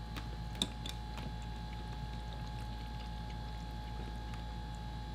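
Quiet table-eating sounds: metal utensils lightly clink against ceramic ramen bowls a couple of times about half a second in, over a steady low hum.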